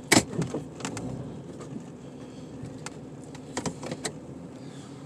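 A vehicle engine running steadily, with several sharp knocks and clicks over it. The loudest knock comes just after the start, and a cluster of them comes about three and a half to four seconds in.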